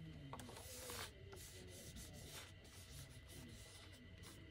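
Faint rubbing of hands smoothing a glued paper cut-out down onto a journal page, skin and paper brushing in a few short strokes.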